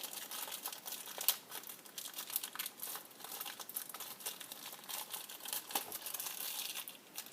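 Packaging crinkling and rustling by hand, with irregular small crackles and one sharper crack about a second in, as the Beyblade's blade base is unwrapped.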